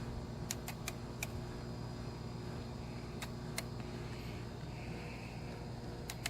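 A wrench ratcheting in scattered single sharp clicks as intake manifold bolts are run in and torqued. The clicks sit over a steady low hum.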